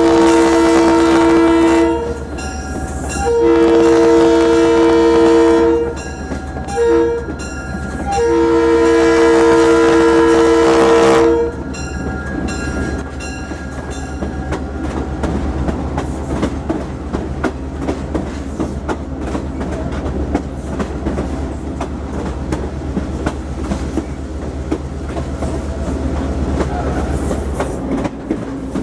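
Diesel locomotive's Leslie RS3L air horn blowing the long-long-short-long grade-crossing signal, with two strong notes sounding, which fits the uploader's note of a fouled RS3L. Afterwards the train rolls on with steady wheel clickety-clack and a low diesel drone.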